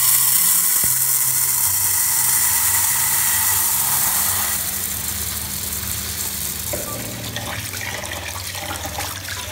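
Tap water pouring into a rice cooker's inner pot onto rice being washed. It turns on suddenly, runs loudest for about the first four seconds, then eases a little as the pot fills while a hand swirls the rice.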